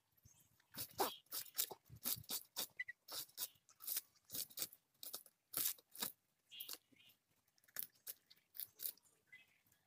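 Scales being scraped off a whole snakehead fish against the blade of a boti: short, crisp crunching strokes, irregular at about three a second.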